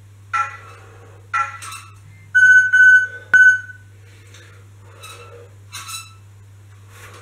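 Bullworker exerciser squeaking as its sliding tubes and spring are compressed and released, short squeaks about once a second. A louder drawn-out squeal comes in three pulses midway, with a sharp click among them.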